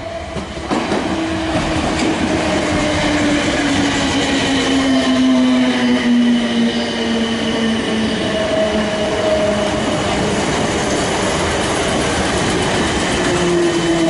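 South Western Railway electric multiple unit running in along the platform: steady wheel-on-rail noise with a motor whine that falls in pitch as the train slows. It gets louder about a second in as the front of the train reaches the platform.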